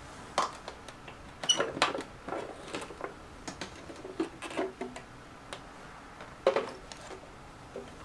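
Irregular hard-plastic clicks and knocks as the plastic housing of a small bagless vacuum cleaner is unclipped, pulled apart and its filter panel handled.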